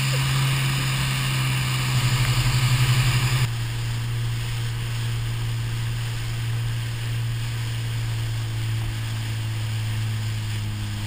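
Motorboat engine running with a steady low hum, under the rush of churning wake water and wind; from about two seconds in the sound briefly throbs rapidly. At about three and a half seconds the rushing hiss drops away, leaving the engine hum.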